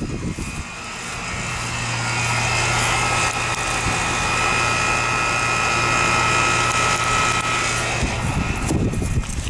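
Outdoor air-conditioner condenser unit running: a steady fan whoosh over a low compressor hum with a couple of steady high tones. It grows louder over the first two seconds, holds steady, then drops away near the end.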